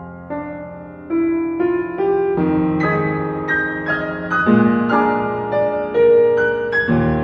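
Slow solo piano music: single notes of a melody over held lower notes, quiet at first and growing louder after about a second.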